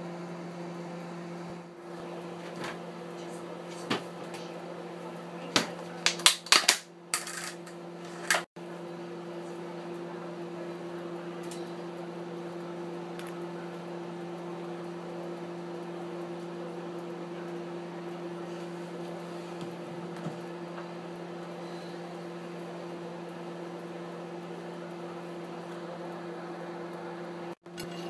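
A steady electrical hum from a kitchen appliance, with a short run of sharp clinks and knocks of plate and cutlery about six to seven seconds in.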